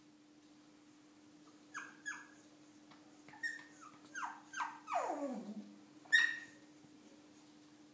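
Shih tzu puppy whining: a string of short high cries, each dropping in pitch, then one longer cry sliding far down and a last higher cry.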